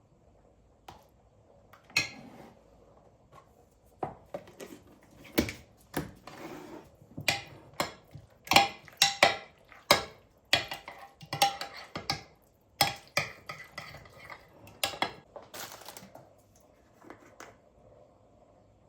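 Dishes and cutlery clinking and clattering as they are handled and set down, a quick irregular run of knocks, some with a short ring, starting about two seconds in and dying away near the end.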